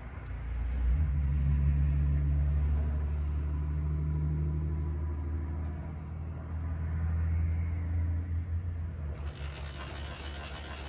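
Milling machine motor running with a steady low hum. It comes up about half a second in and fades near the end.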